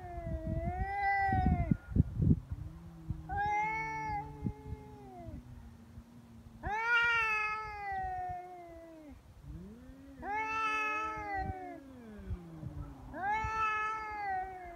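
Two stray cats yowling at each other in a standoff: about five long, drawn-out threat yowls that rise and fall in pitch, at times two voices overlapping. Rough low noise accompanies the first couple of seconds.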